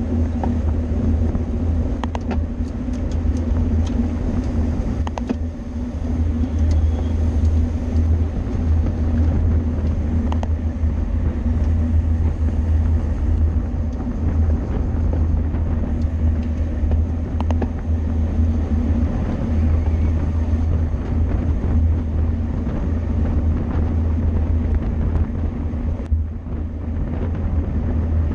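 Steady low wind and road rumble picked up by a camera riding on a racing bicycle, with a few sharp clicks scattered through it.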